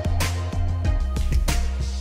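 Background music with a steady beat: drums with cymbal hits over a bass line.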